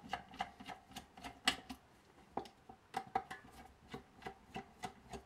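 Light, irregular clicks and taps of a small screwdriver and fingers working on an electrocardiograph's printer assembly, plastic and metal parts knocking as the print head is worked loose.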